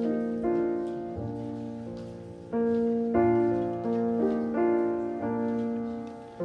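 Piano playing a slow, gentle piece in held chords, each chord struck and left to fade before the next.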